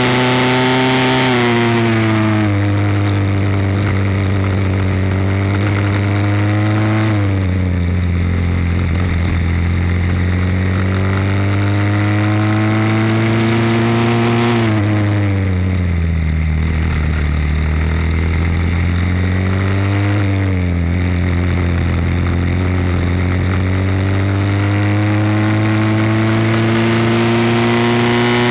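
Briggs & Stratton World Formula four-stroke single-cylinder kart engine at racing speed: its pitch climbs steadily as the kart accelerates along the straights and drops sharply four times as the driver lifts off and brakes for corners.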